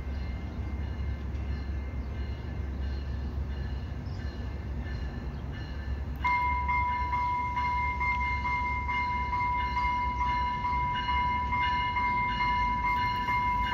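An approaching EXO Bombardier multilevel commuter train with a steady low rumble. About six seconds in, a loud steady high-pitched warning tone starts suddenly and holds, with a faint rhythmic ringing over it.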